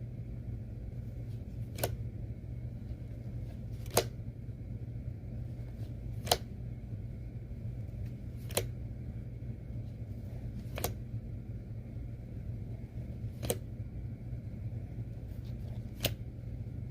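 Trading cards being handled one at a time, each laid down or flicked with a short crisp snap, seven in all, roughly every two seconds, over a steady low hum.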